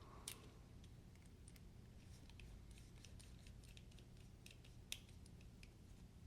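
Faint, scattered small clicks and light taps, with two sharper clicks about a third of a second in and just before five seconds: the parts of a disassembled folding knife being handled while the blade is cleaned.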